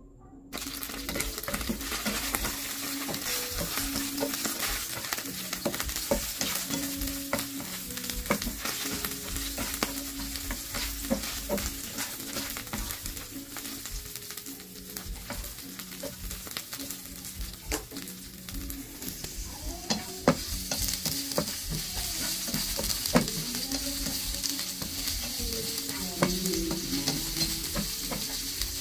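Chopped garlic sizzling in hot oil in a nonstick frying pan, the sizzle starting abruptly about half a second in as it hits the oil, with sharp clicks of stirring throughout. About twenty seconds in, sliced red onion goes in and the sizzle grows brighter and louder.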